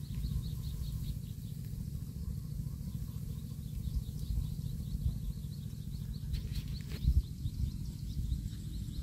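Wind rumbling on the microphone, with faint, rhythmic high chirping a few times a second and a single thump about seven seconds in.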